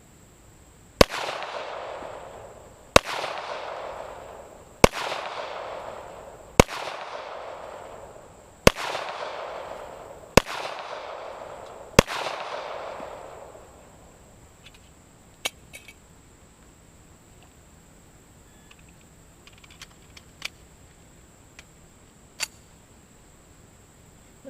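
.45 pistol fired seven times at a steady pace, a shot about every two seconds, each report echoing away for over a second. A few faint clicks follow the last shot.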